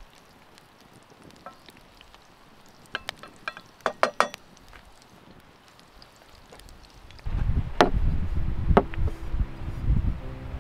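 Meat patties frying gently in a stainless steel pan over an open wood fire, with a cluster of sharp crackles around three to four seconds in. About seven seconds in, a much louder low rumble cuts in suddenly, and music tones begin under it.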